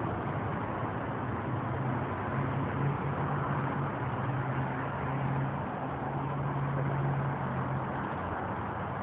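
Steady road-traffic noise, with the low hum of vehicle engines swelling and fading as they pass.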